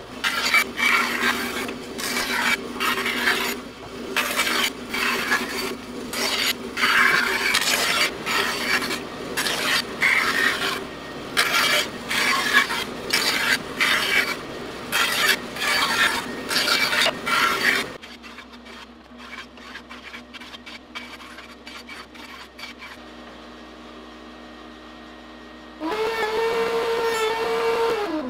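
Bandsaw cutting the outline of a laminated wooden kayak paddle blade: repeated rasping bursts of the cut over the saw's steady running tone for about eighteen seconds, then the cutting stops. Near the end a table-mounted router starts up with a loud steady whine.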